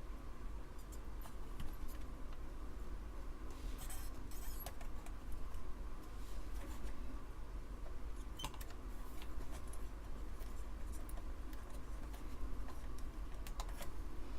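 Scattered light clicks and taps of small tools working on a circuit board as the RF modulator is freed, over a low steady hum.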